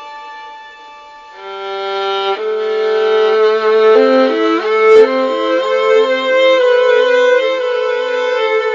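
Instrumental background music with a violin: a held note, then from about a second and a half in a fuller melody over a repeating low accompaniment figure. A single sharp click about five seconds in.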